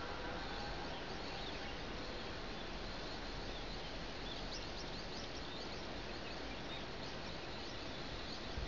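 Steady outdoor background hiss at daybreak, with a cluster of faint, high bird chirps about halfway through.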